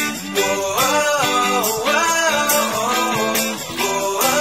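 Background music: guitar chords under a gliding sung melody, with a steady beat.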